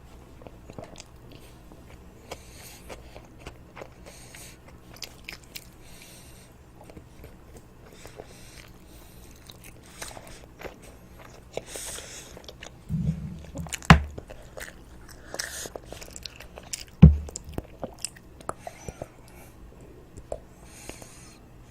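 A child biting and chewing toast close to the microphone: crisp crunches and wet mouth sounds coming in short irregular clicks. A few heavy dull thumps stand out about two-thirds of the way through.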